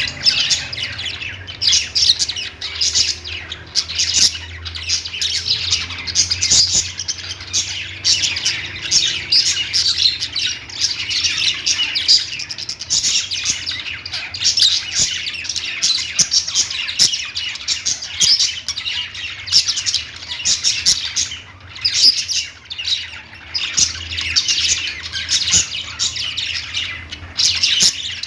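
Several small pet parrots chirping, warbling and squawking in a continuous dense chatter, with a faint low hum underneath.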